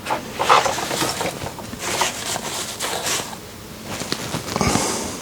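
Rustling and light clicks and knocks from hands and small metal tools being moved about on a workbench, in several irregular bursts.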